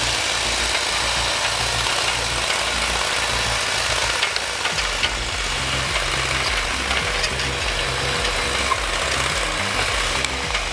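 An engine running steadily under load, a dense even mechanical noise with a low rumble that shifts slightly in pitch.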